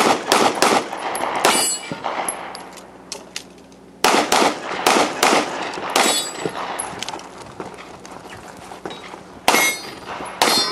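CZ SP-01 Shadow pistol firing in fast strings of shots, about three to four a second: a string at the start, a pause of about two seconds, a longer string, and another string near the end. Sharp metallic clangs ring out among the shots, about a second and a half in, around six seconds and near the end.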